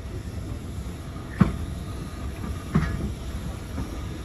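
Railway carriage rolling slowly along the track: a low rumble with a sharp wheel knock over the rail joints about every second, four times.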